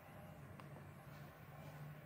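Near silence: a faint, steady low hum, with one tiny tick about half a second in.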